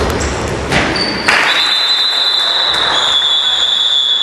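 Two thuds of the basketball striking the hoop about a second in, then a referee's whistle blown in one long, steady blast.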